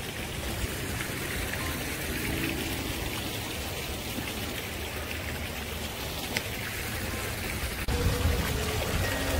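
Steady running water, an even trickling, splashing hiss. Near the end it shifts suddenly and grows a little louder, and faint music comes in.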